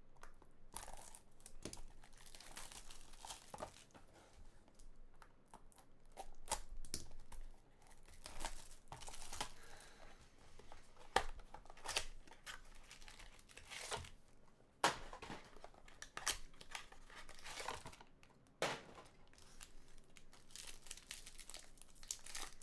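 Plastic wrapping on a trading card box being torn open and crinkled, in irregular rustling bursts with scattered sharp clicks and crackles.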